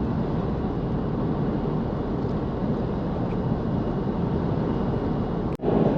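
Vehicle driving at cruising speed: steady engine and tyre road noise. It cuts out for an instant near the end.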